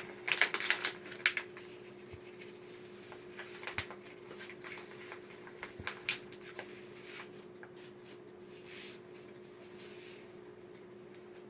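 Salt being added to a pot of soup: a quick run of rattling clicks in the first second and a half, then a few scattered clicks, over a steady low hum.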